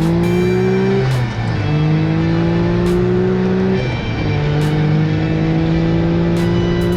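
Dune buggy engine pulling under throttle. Its pitch climbs slowly, drops back about a second in and again near four seconds, then climbs again, with scattered sharp ticks over the top.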